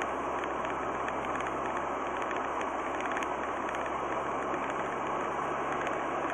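Steady road and engine noise inside a moving car at about 60 km/h on a wet, slushy road, picked up by a dash cam, with a faint low hum beneath.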